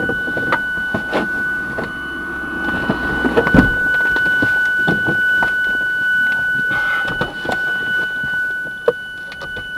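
Scattered knocks, clicks and rustling inside a stopped car's cabin, the loudest thump a little over three seconds in, over a steady high-pitched tone.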